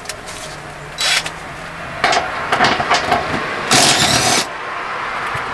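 Electric power-seat motors of a 1994 Ford Explorer running in short runs to move the seats forward, a low hum followed by several whirring bursts, the loudest with a thin rising whine.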